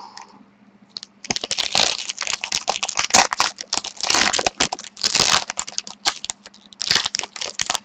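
Foil wrapper of a trading-card pack crinkling and tearing as hands pull it open: a quick run of crackles with louder rustling swells about once a second.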